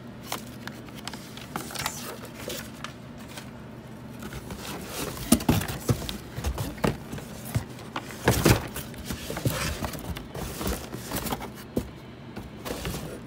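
Handling noise of paper and cardboard: a packing slip and a boxed product rustling, scraping and knocking inside a cardboard shipping box, with the loudest knocks and scrapes a few seconds in.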